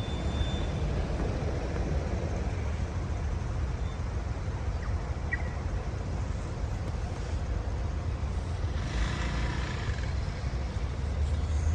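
Outdoor road traffic noise: a steady low rumble of passing vehicles, with a brief rise in tyre hiss around nine seconds in.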